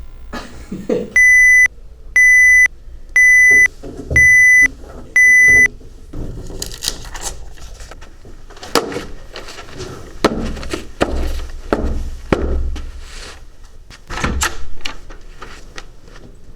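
Smoke-alarm beep, an added sound effect: five loud, steady high electronic beeps, about half a second each and one a second. After them come irregular thumps, knocks and rustling.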